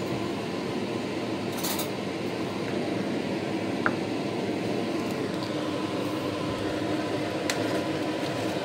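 A steady mechanical hum of kitchen background noise, with a few faint, brief clicks.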